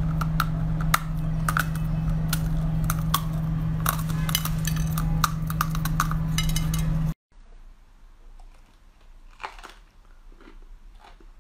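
Ice-cold red corn kernels crunching loudly as they are bitten off the cob and chewed close to the microphone, many sharp crunches over a steady low hum. About seven seconds in, it cuts to fainter crunching as a Brussels sprout is bitten.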